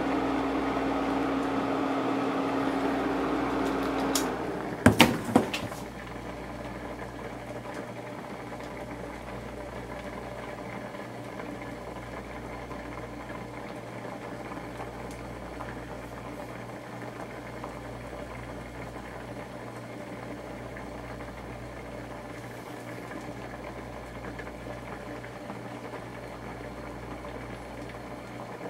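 Sea mustard soup boiling under a glass lid on an electric infrared cooktop, with the cooktop's steady electrical hum. About four to five seconds in, a few sharp clicks come and the louder humming tone stops. What remains is quieter bubbling over a low hum.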